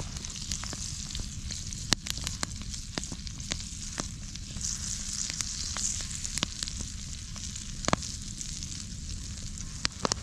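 Butter sizzling and bubbling as it melts in a cast-iron skillet over a wood campfire, with scattered sharp pops and crackles, two of the loudest about two seconds and about eight seconds in.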